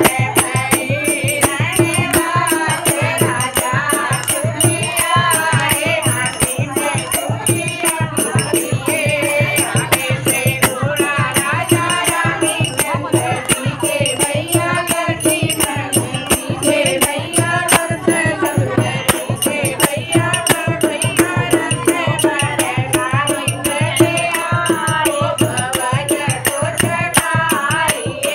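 A woman singing a Kumaoni folk song to a dholak, with a rattling percussion keeping a fast, steady beat under her voice.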